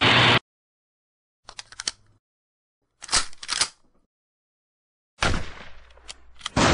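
A short burst of TV static hiss, then three bursts of rapid gunfire sound effects with dead silence between them. The third burst is the longest and trails off.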